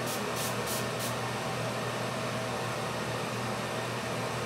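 Fine-mist pump spray bottle of face mist spritzed four times in quick succession, about three short hisses a second, stopping about a second in. A steady low hum carries on underneath.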